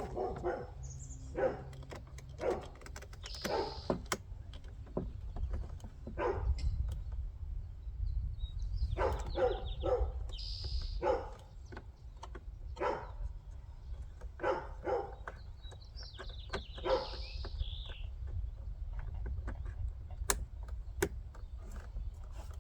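A dog barking and yipping in short calls, on and off throughout, over a low steady rumble.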